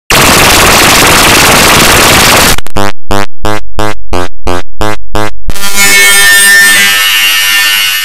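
Mock Emergency Alert System audio, heavily distorted: loud harsh static for about two and a half seconds, then a quick run of about nine distorted beeps, roughly three a second, then a dense buzzing drone of layered tones.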